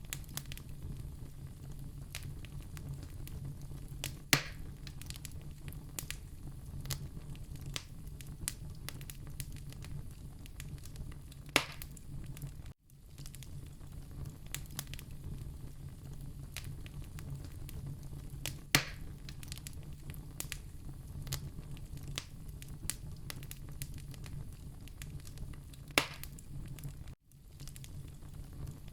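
Fireplace fire crackling over a steady low rumble, with frequent small snaps and four louder pops spaced about seven seconds apart. The sound cuts out for an instant twice.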